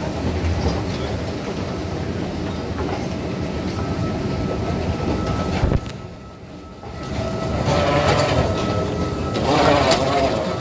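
Steady rumble of a moving vehicle, which drops away for about a second near the middle before returning.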